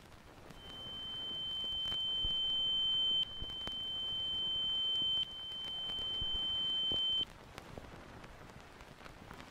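A steady, high-pitched electronic beep tone, held at one pitch. It starts about half a second in and comes in three stretches of about two seconds, each swelling louder and then dropping back sharply. It cuts off after about seven seconds, leaving faint background noise.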